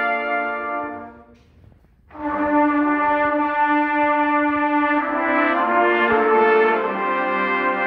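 Trumpet choir playing sustained chords in harmony. The chord dies away about a second in, and after a short pause the ensemble comes back in with held chords that change a couple of times.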